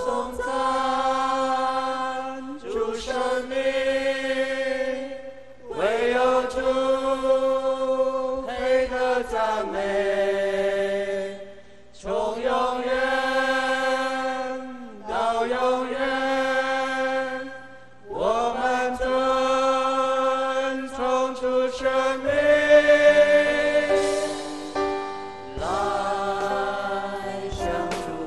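Voices singing a slow Chinese worship song in long held notes, in phrases of about three seconds with short pauses between them.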